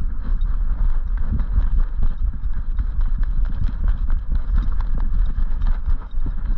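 Rapid irregular thudding and knocking from a GoPro Hero 8 on a running dog's harness, jolted by each of the dog's strides, under a steady low rumble.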